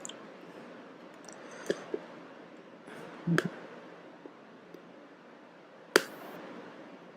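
Plastic shrink wrap on a phone box being picked at and pulled, with scattered crinkles and clicks and one sharp snap about six seconds in.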